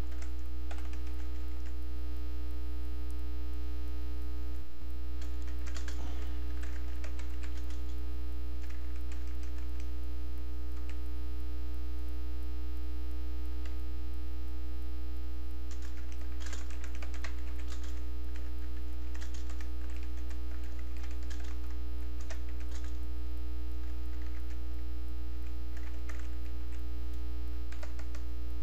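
Irregular bursts of typing on a computer keyboard, clicking in short runs with pauses between, over a loud steady electrical mains hum.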